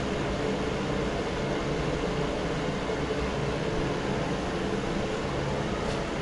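Mondial A-08 electric fan heater running, its fan blowing a steady rush of air with a low hum.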